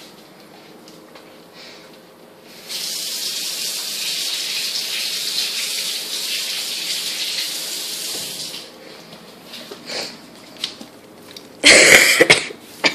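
A steady rush like water running from a kitchen tap, for about six seconds from near the three-second mark. A brief loud burst of noise follows near the end.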